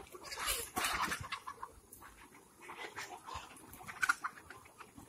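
A flock of Kadaknath chickens clucking in short, scattered calls.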